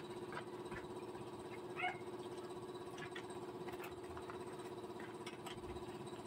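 Faint, steady machine hum, with a few short high squeaks and light clicks over it.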